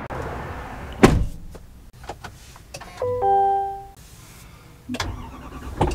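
A sharp thud about a second in, then a two-note electronic chime from the Chevrolet Silverado's instrument cluster as the truck's ignition comes on, and another thud near the end.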